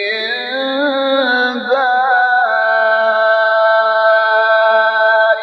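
Male Quran reciter's voice in melodic recitation, holding one long, ornamented note: the pitch climbs in small wavering steps over the first two seconds or so, then holds steady until it breaks off at the end.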